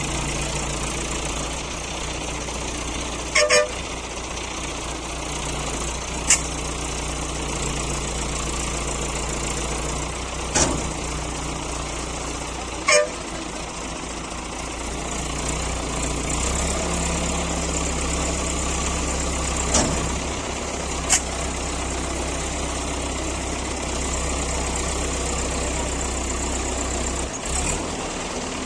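Heavy diesel engine running steadily, its note rising a little about halfway through, with a few short sharp knocks in between.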